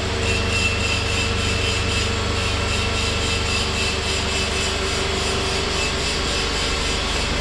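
Electric-motor-driven industrial machine running steadily: an even mechanical hum with a constant high whine over it.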